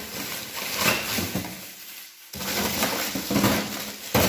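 Plastic bags of meat rustling and crinkling as they are shoved into a plastic freezer drawer, with a sharp knock near the end.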